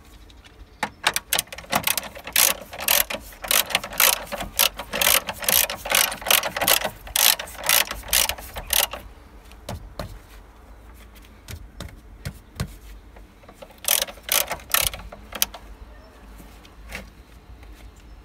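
Hand ratchet wrench clicking in quick back-and-forth strokes as a nut is tightened, for about eight seconds, then again briefly near the end.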